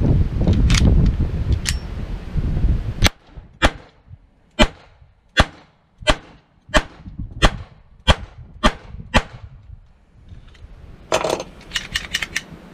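Ten shots from a semi-automatic pistol fired at a steady pace, about one every two-thirds of a second. Before them there is wind rumble on the microphone and a couple of clicks as the pistol is loaded. After them come a quick run of clicks and clatters as the gun is handled on the bench.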